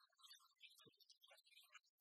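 Near silence, with only faint scattered crackle.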